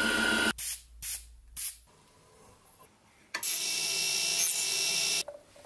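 A lathe cutting wood for the first half second, then three short bursts of cutting. After a quiet stretch, a rotary tool's thin cutoff disc grinds with a steady hiss and whine for about two seconds.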